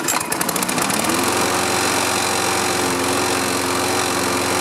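Toro Recycler walk-behind mower's Briggs & Stratton engine starting: it fires at once, picks up speed over about the first second, and settles into a steady run.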